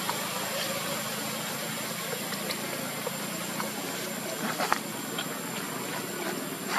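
Steady background noise with a low, steady hum, with a few faint clicks.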